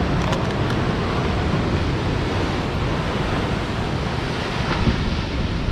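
Ocean surf washing and breaking against rocks in a steady rush, with wind buffeting the microphone.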